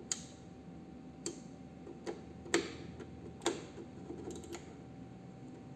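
About half a dozen sharp, irregularly spaced clicks of the push buttons on a Yamaha MG16XU mixer's channel strips being pressed, over a faint steady tone.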